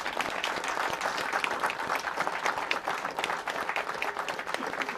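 Crowd of people applauding, a steady patter of many hands clapping.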